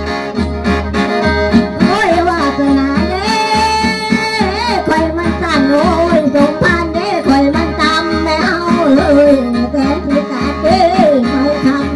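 Traditional Isan ritual dance music: a khaen (bamboo mouth organ) playing over a steady drone, with a voice singing a wavering melody and a steady low beat.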